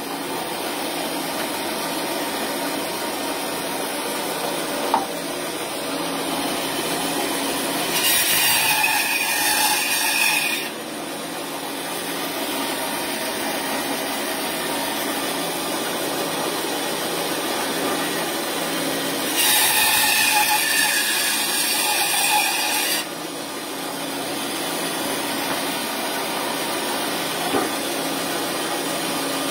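Bandsaw running steadily, its blade cutting through partly frozen raw bone twice, each cut a louder, harsher stretch of about three seconds, roughly a third and three-quarters of the way through; between the cuts the saw runs unloaded.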